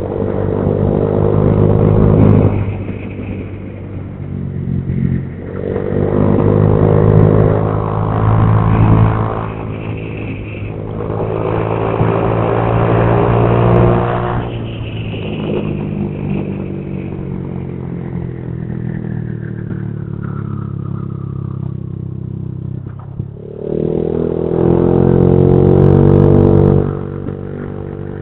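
Honda Vario 150 scooter's single-cylinder four-stroke engine through a cheap replica aftermarket exhaust, under way with the throttle opened hard four times, the engine note rising and loud with each surge. In the middle it eases off for several seconds as a high whine falls slowly in pitch.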